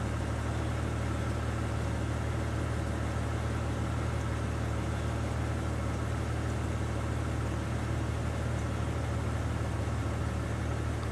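A vehicle engine running steadily: an even low rumble under a constant hiss, with no change in pitch or level.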